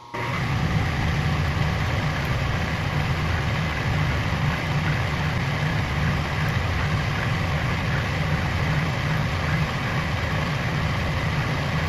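Clausing horizontal milling machine running under load, its 3-inch-diameter, quarter-inch-wide cutter conventional milling a block of aluminum dry. The sound is a steady, loud machining noise over a low rumble from the spindle drive.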